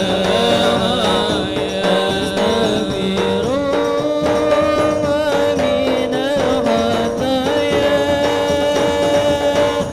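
A lead voice singing a wavering melody over a hadrah ensemble of rebana frame drums and larger hand drums beating continuously.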